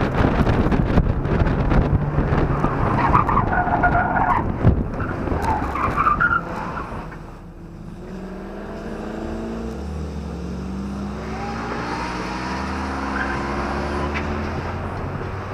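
Mazda Miata driven hard on an autocross course, engine working under load with tyres squealing briefly twice in the first half. About six seconds in the engine note drops away sharply, and the car rolls on with the engine running gently at low revs.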